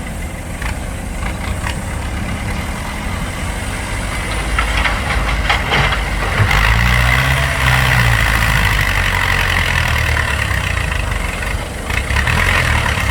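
Heavy diesel engine of a dump truck or excavator working hard. It grows louder about four seconds in and holds there, with a high steady whine over the engine note.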